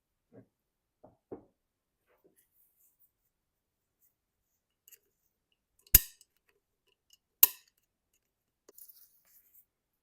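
Two sharp metallic clicks about a second and a half apart, with a few faint taps before them: metal tools and parts knocking together while a motorcycle front fork is taken apart.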